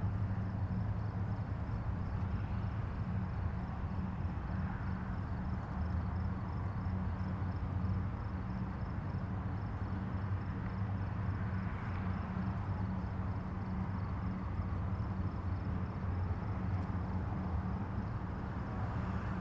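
A steady low mechanical hum with a faint, fast, even ticking high above it.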